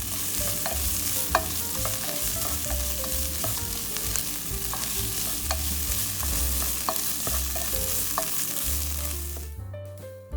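Food sizzling as it fries in a pan, with a utensil stirring and ticking against it now and then. The sizzle stops near the end.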